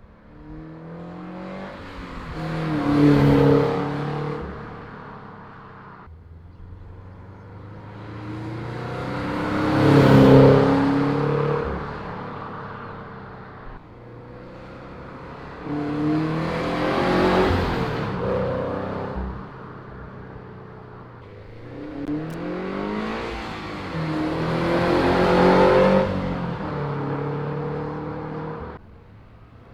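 Flat-four engine of a Subaru BRZ / Scion FR-S with unequal-length headers and an Invidia Q300 cat-back exhaust, pulling hard to about 4,000 rpm. The exhaust note swells up and fades away four times, its pitch rising and falling.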